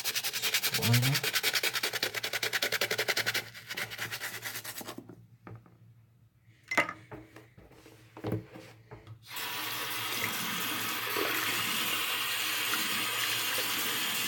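Rapid, even scrubbing strokes of a brush on a sneaker for the first few seconds, then a couple of knocks. From about nine seconds in, a tap runs steadily into a sink.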